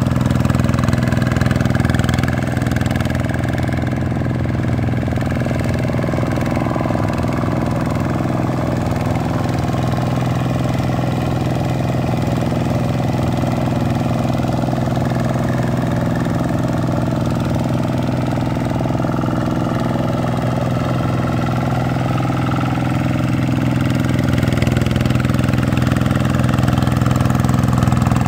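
Vikyno RV125-2 single-cylinder diesel engine of a two-wheel hand tractor running steadily under load as it puddles a flooded paddy field with cage wheels. The drone grows a little fainter early on as the tractor moves off and louder again near the end as it comes back.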